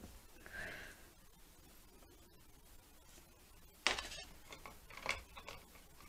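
Mostly quiet room with a few brief clicks and scrapes about four seconds in and again around five seconds, the first the loudest: paint brushes and painting supplies being handled.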